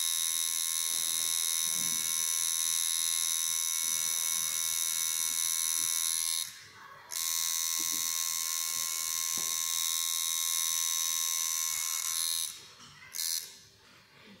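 Electric tattoo machine buzzing steadily as its needle runs into the skin. The buzz stops for a moment about six and a half seconds in, runs again until near the end, then gives one short final burst.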